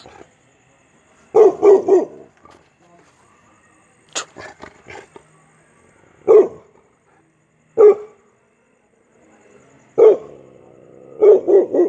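A dog barking in short loud barks: three in quick succession about a second and a half in, then single barks spaced a couple of seconds apart, and another quick run of three near the end.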